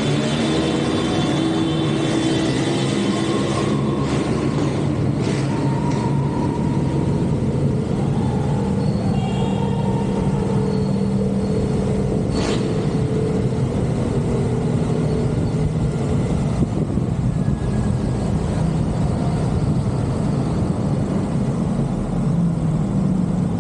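Vespa Primavera scooter engine running at a steady riding speed, its pitch shifting a little every few seconds, under constant road and wind noise. There is a brief click about halfway through.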